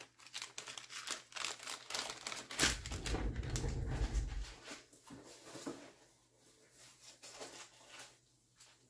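Clear plastic zip bags crinkling and rustling as they are handled, in many quick crackles, with a dull low rumble for about two seconds near the middle; fainter scattered rustles and clicks follow.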